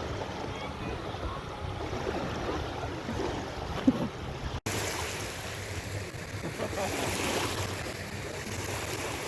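Waves lapping at the shore with wind buffeting the microphone, a steady rushing noise. About halfway through the sound drops out for an instant, then comes back with more hiss.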